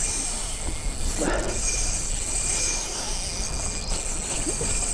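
Strong, gusty wind buffeting the microphone: a steady rushing noise with a low rumble.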